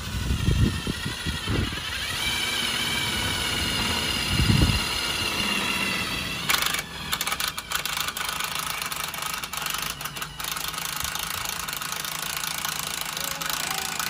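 Cordless drill running under load as its bit bores into the steel body panel of a Ram Promaster van, a steady motor whine with a couple of low bumps. About six seconds in it turns rougher and noisier.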